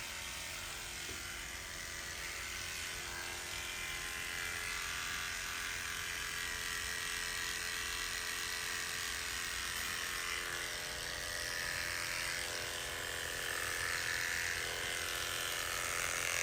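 Electric hair clipper buzzing steadily as it shaves a man's scalp, getting a little louder in the second half.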